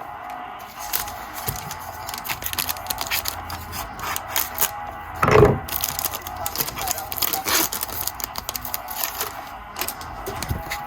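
Trading cards and their pack being handled: a run of rustles, scrapes and small clicks of card stock and wrapper, with one louder crinkle about five seconds in.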